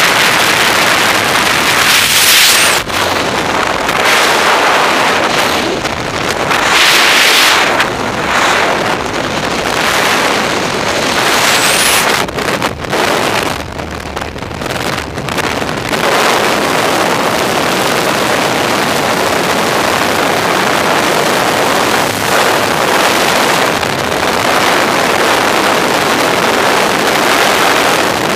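Loud rushing wind on a helmet camera's microphone in skydiving freefall, surging and easing over the first half and holding steady from about 16 seconds in.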